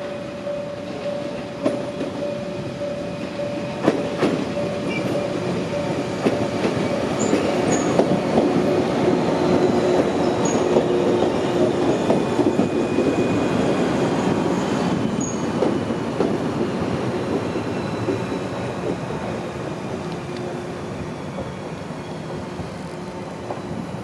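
A train running past, its wheels clattering over the rails, with a few sharp knocks early on and faint high wheel squeal. The noise builds to a peak midway and then fades away.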